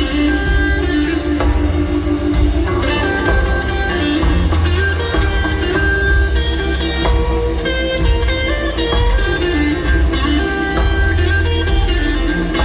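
Live blues band playing an instrumental stretch: electric guitar over bass and drum kit, with steady cymbal ticks keeping time.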